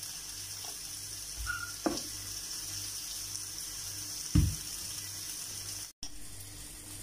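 Steady hiss with two dull knocks, about two seconds and four and a half seconds in, as whole-wheat tortilla dough is pressed and rolled out on a floured worktop.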